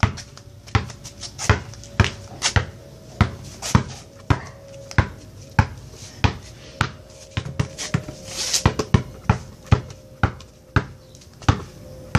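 Basketball being dribbled on a concrete walkway: a steady rhythm of sharp bounces, a little under two a second.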